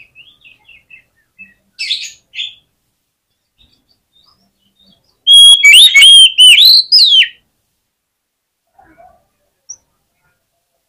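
Oriental magpie-robin (kacer) singing aggressively: soft chirps, a short harsh burst about two seconds in, then a loud phrase of whistled notes gliding up and down for about two seconds.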